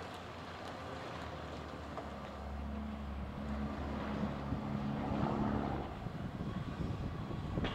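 Komatsu PC200LC hydraulic excavator's diesel engine running under load as it swings and dumps rubble, the drone growing louder and heavier about two seconds in and easing off near the end, with a few faint knocks of falling debris.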